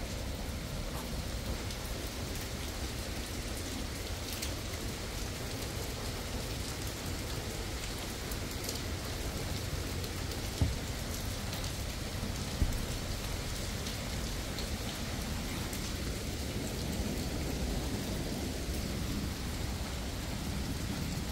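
Steady rain, with faint scattered drop ticks. Two sharp knocks stand out about two seconds apart near the middle.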